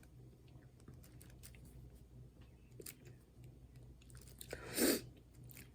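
Faint scattered ticks and taps of small pieces being handled and pressed onto a craft canvas, with one short louder noise about five seconds in.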